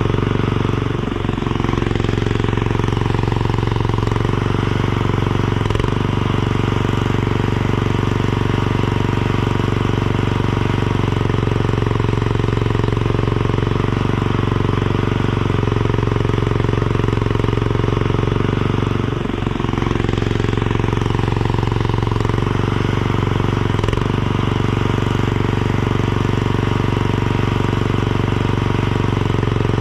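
Mini skid steer's engine running steadily, its note sagging briefly twice, about a second in and again a little past the middle.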